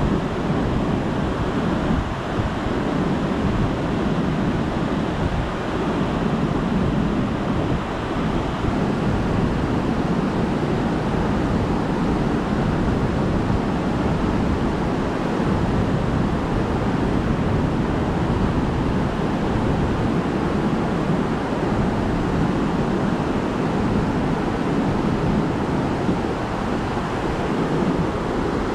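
Steady rush of the Merced River's whitewater rapids below, an even, unbroken roar of fast water.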